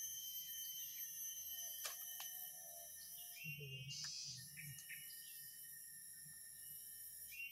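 Insects chirring in a steady chorus of several high-pitched tones, some cutting in and out, with two faint clicks about two seconds in.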